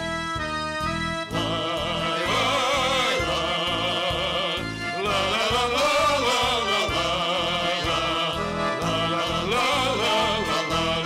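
Music: an accordion-led band plays on with a steady, even bass beat under wavering held melody notes.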